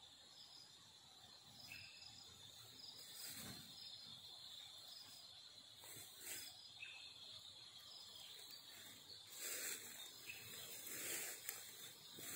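Faint outdoor ambience: a steady high insect buzz, a short high chirp repeating every few seconds, and rustling swishes of footsteps through grass and leafy undergrowth, becoming louder and more frequent in the last few seconds.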